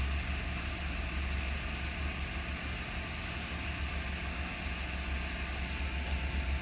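Steady low hum with an even hiss over it, with no distinct knocks or clicks.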